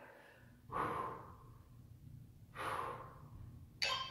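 A woman breathing out hard twice, about two seconds apart: effortful breaths during a seated twisting core exercise. A sharper, brief sound comes near the end.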